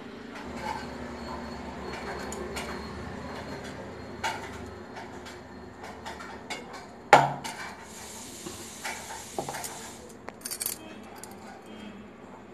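Stainless steel bowls and a mixer jar being handled: scattered clinks and knocks of metal on metal, with one loud ringing knock about seven seconds in, followed by a couple of seconds of scraping.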